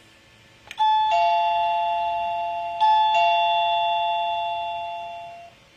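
Electronic doorbell chime: a two-note falling ding-dong played twice, each note ringing on and fading out, after a faint click just before the first chime.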